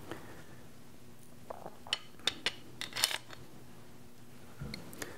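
Small metal clicks and clinks of steel air rifle action parts being handled and fitted together by hand. There is a quick run of sharp clicks about a second and a half in, the loudest near three seconds, and a couple more just before the end.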